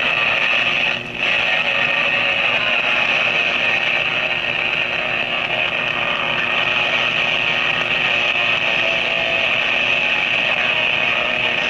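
Steady static hiss from an Electra radio-recorder's speaker, the sound of the radio tuned between stations, with a brief dropout about a second in.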